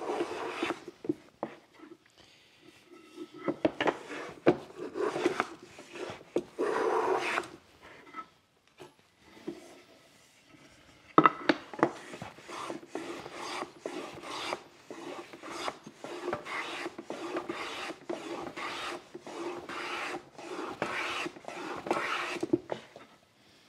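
Hand plane on a shooting board trimming end grain flush: quick repeated shearing strokes as the blade cuts and the plane slides along the board, with a quieter pause of a few seconds about eight seconds in.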